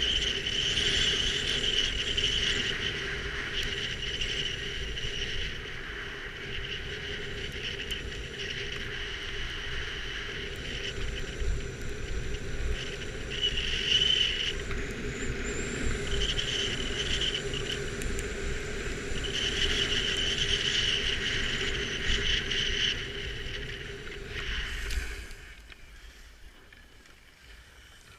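Insects chirping steadily, swelling and fading in stretches over a low rumble and a faint steady hum; it all drops away near the end.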